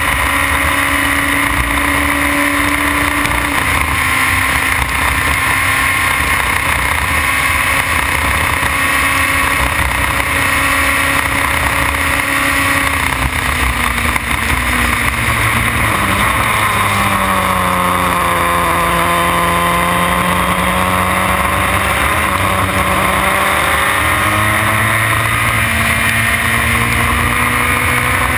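Formula BMW single-seater's four-cylinder engine running hard, heard from an onboard camera with steady wind and wet-track spray noise. About halfway through the revs drop as the car brakes and downshifts for a corner, then climb steadily again as it accelerates out.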